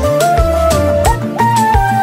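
Music from a Haitian band's song: a lead melody that holds notes and slides between them, over a bass line and a regular drum beat.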